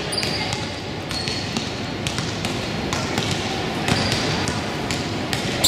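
Basketballs bouncing on a gym floor, with scattered sharp knocks and a few short high sneaker squeaks over a steady gym din.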